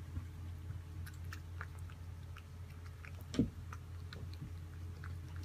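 A steady low hum under faint scattered clicks, with one soft thump about three and a half seconds in.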